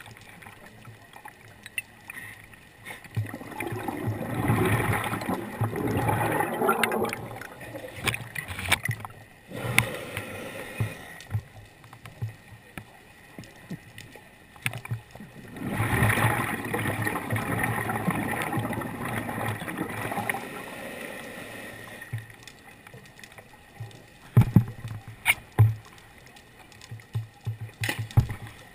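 Scuba diver's regulator breathing heard underwater: two long bubbling exhalations about twelve seconds apart, then a few sharp clicks and knocks near the end.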